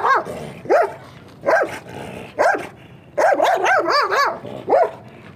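A large leashed guardian-breed dog barking loudly. Single barks come about a second apart, then a quick run of several barks follows, with one more bark near the end.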